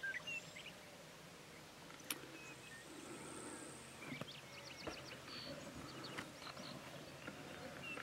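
Faint open-country ambience with birds chirping and calling at a distance, including a quick run of ticking notes about four seconds in. There is a single sharp click about two seconds in.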